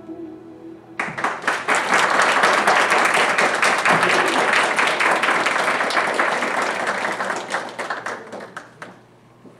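Audience applauding. The clapping starts suddenly about a second in and tapers off near the end.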